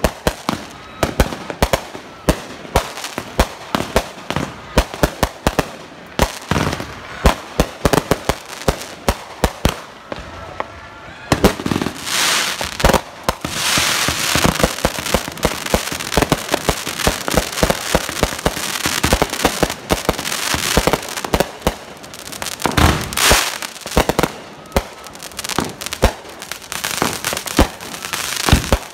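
Consumer fireworks and firecrackers going off in rapid, irregular bangs and pops. A little before the halfway point a dense hissing crackle joins, from a ground fountain spraying sparks, with loud bangs still going off over it.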